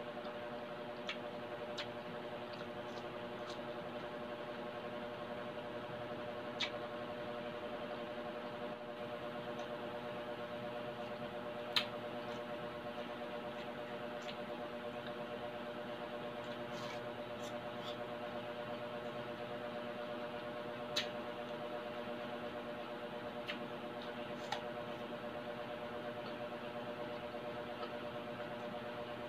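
Close-miked chewing of juicy pineapple, with a few sharp mouth clicks and smacks scattered through, over a steady electrical hum.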